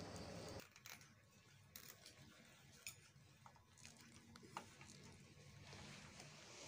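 Near silence with a few faint clicks and rustles of a clear plastic hose being worked by hand onto the sprayer wand's pipe fitting.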